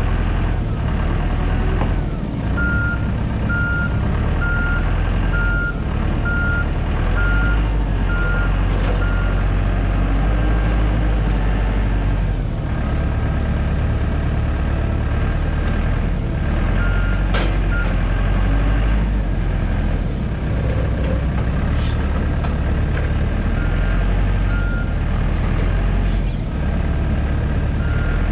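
Heavy machine's diesel engine working, its revs rising and falling, with a reversing alarm beeping in several runs of steady beeps, about one and a half a second.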